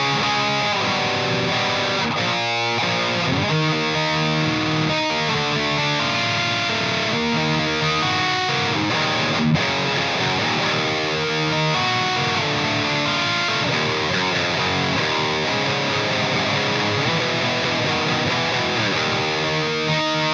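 Electric guitar played through an EVH 5150 III LBX tube amp head with heavy distortion, riffing continuously with chords and single notes at a steady, loud level.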